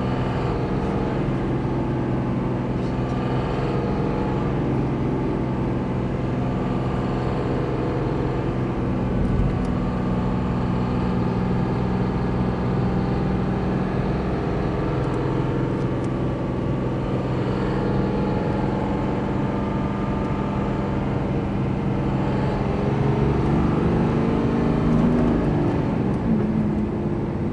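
Cummins 5.9 inline-six turbo-diesel running at about 1,200–2,500 rpm with a strange rattle that comes back every few seconds and varies with engine speed and throttle, plus a slight misfire while held at a steady rpm. Near the end the throttle is opened and the engine revs up, sounding smooth.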